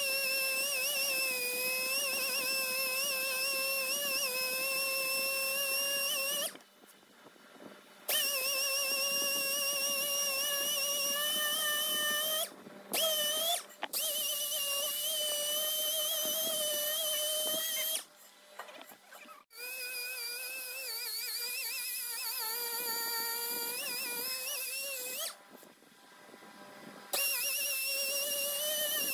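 Pneumatic orbital sander running with a high whine that wavers in pitch as it is pressed onto the alloy wheel face. It cuts out and restarts several times.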